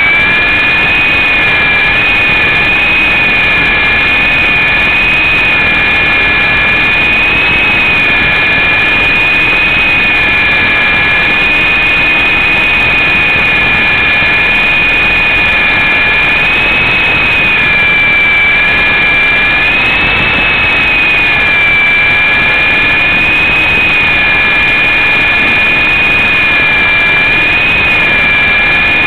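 Syma S033G remote-control helicopter's electric motors and rotors running in flight, heard close up through its own onboard camera: a loud, steady high whine that wavers slightly in pitch as it manoeuvres.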